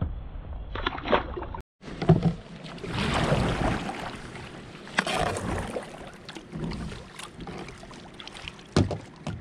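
Water lapping and splashing around a kayak on a river, with scattered small knocks and splashes. The sound cuts out for a moment about two seconds in.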